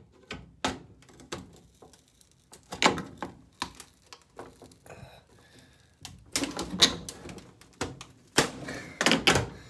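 Scissors prying and jabbing at an old dryer's plastic control knobs and panel: an irregular string of sharp clicks, clacks and knocks, coming thicker and louder in the second half.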